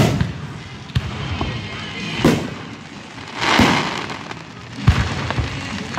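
Aerial firework shells bursting overhead: a string of sharp bangs about a second apart, one of them drawn out into a longer rush of crackling noise a little past the middle.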